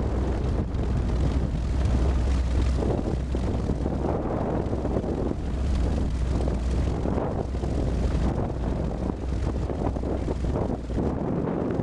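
Zenith CH200 light aircraft's propeller engine running steadily at low taxi power, a deep drone with wind buffeting the wing-mounted camera's microphone.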